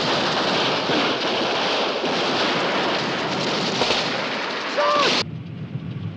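War-film battle soundtrack: a dense, loud din of gunfire and explosions. It cuts off abruptly about five seconds in, right after a brief shout.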